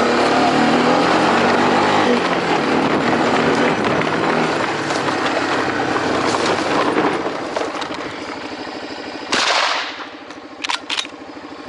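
A motor running under loud rushing noise that fades after about seven seconds, then a single rifle shot about nine seconds in, followed by two short clicks near the end.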